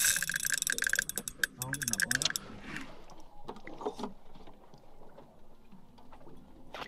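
Fishing reel being wound in fast, a dense rapid clicking and whirring from its gears, which stops about two and a half seconds in. After that only a few scattered light clicks and knocks.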